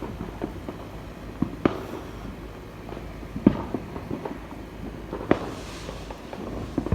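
Fireworks going off: a run of scattered pops, with a louder bang about every two seconds and a brief crackle after the last one.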